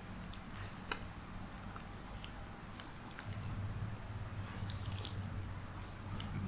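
A person biting into a burger and chewing it, with scattered small clicks and crackles. A low steady hum comes in about halfway through.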